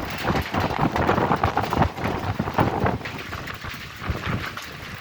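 Thunderstorm: rain with rumbling thunder, loud and uneven, easing somewhat after about three seconds.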